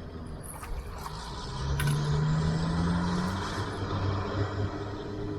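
A boat's outboard motor running under way, its pitch rising slightly over a couple of seconds, with two short knocks about a second apart near the start.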